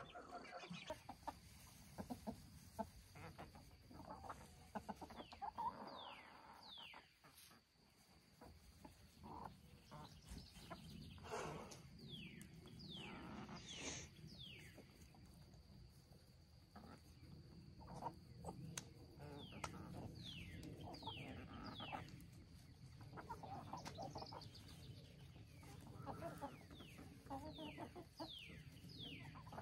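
Faint clucking and calls from a flock of chickens, with short, high, falling chirps scattered throughout.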